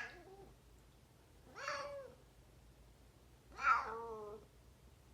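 Pet cat making two short, odd meowing calls, the second one longer.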